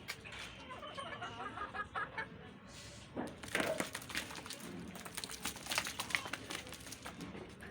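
Chickens clucking softly in short notes, then, from about three seconds in, a run of sharp clicks and scratchy rustles.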